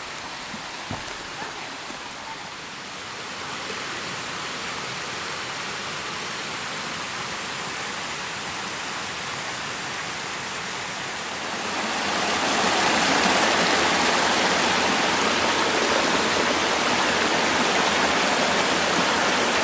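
A rocky forest stream rushing and splashing over small cascades, a steady rush of water that grows markedly louder about twelve seconds in.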